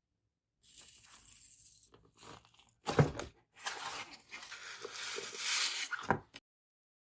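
Packaging being handled and opened: rustling and tearing of paper or plastic wrapping, with a sharp knock about three seconds in and another about six seconds in.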